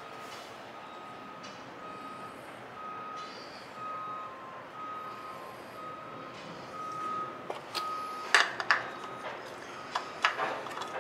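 A short high electronic beep repeating evenly, about one and a half times a second. From about seven and a half seconds in, sharp clicks and knocks of hands working on the mower engine around the newly fitted oil filter are the loudest sounds.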